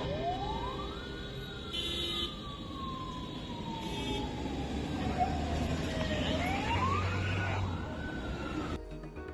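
Fire engine siren wailing. It rises in pitch over about a second, falls slowly for about five seconds, rises again, and cuts off near the end.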